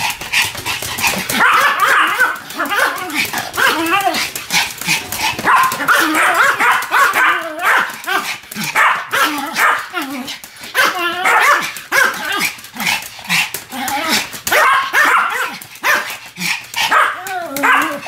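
Two Pomeranians barking together in a duet, a rapid, near-continuous run of yapping barks.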